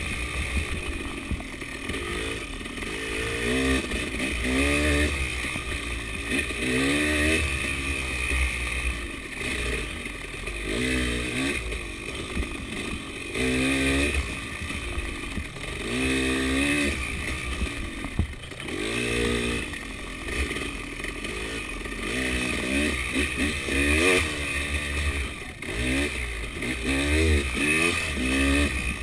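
KTM 300 two-stroke enduro motorcycle being ridden hard, its engine revving up and falling back over and over, roughly every two seconds, as the throttle is opened and closed.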